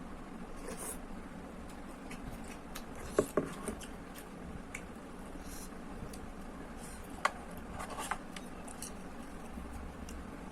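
Eating instant noodles from a bowl: a few sharp clicks of utensils against the bowl, about three seconds in and again near seven and eight seconds, with soft, short mouth noises in between.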